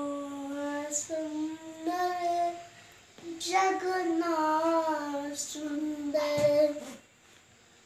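A young girl singing unaccompanied, holding long notes in two phrases with a short breath between them, stopping about seven seconds in.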